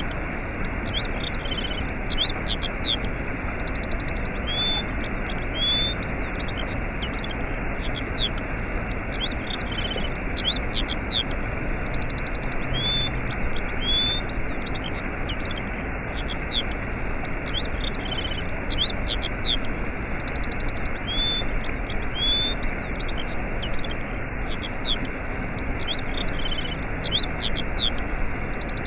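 Steady rushing of a waterfall with small birds chirping and trilling high above it; the same run of bird calls comes round again about every eight seconds, as a repeating loop.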